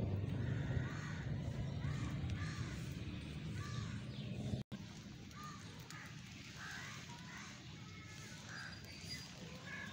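Crows cawing in short, repeated calls, several overlapping. A low steady rumble runs under them for the first half and cuts off abruptly about halfway.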